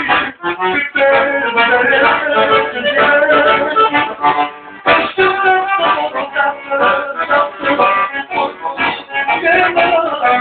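Accordion playing a Romanian hora lentă (slow hora), a dense run of quick ornamented melody notes that thins briefly about halfway through.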